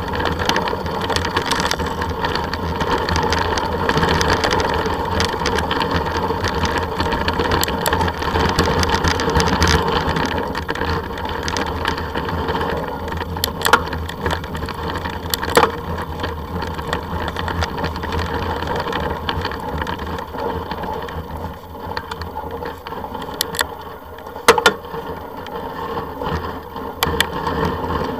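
Ride noise picked up by a camera moving along a snowy forest track: a steady rumble of tyres, rattle and wind on the microphone, with a few sharp knocks from bumps, two of them in the middle and two near the end.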